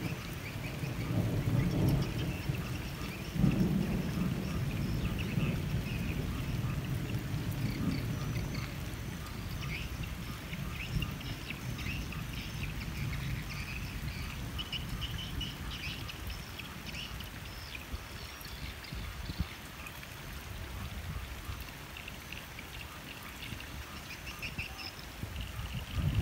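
Steady rain falling and dripping from the edge of a thatched roof. A low rumble is heaviest in the first several seconds and swells again near the end.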